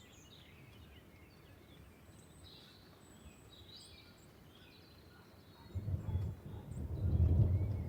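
Birds chirping faintly over a quiet storm ambience. About two-thirds of the way in, a low rolling thunder rumble sets in and swells louder toward the end.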